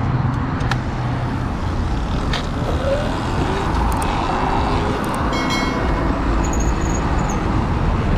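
Steady rumble of wind and road noise on a camera riding on a moving Sur Ron electric dirt bike, mixed with street traffic. A brief high-pitched tone sounds about five and a half seconds in.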